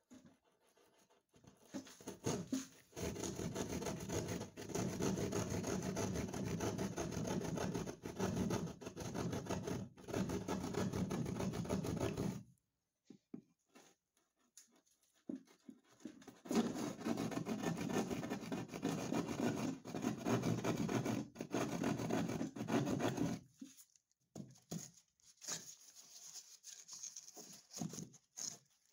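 Drywall jab saw cutting through gypsum board in rapid back-and-forth strokes, in two long spells of about ten and seven seconds with a pause between, followed by a few scattered scrapes and knocks near the end.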